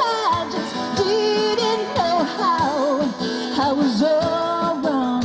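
Live band music: a woman singing long, wavering notes over acoustic guitar and drums.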